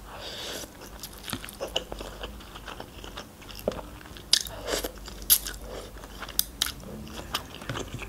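Close-miked eating sounds: forkfuls of instant noodles sucked in and chewed, with many short wet mouth clicks and smacks, a soft slurp at the start and another about four seconds in.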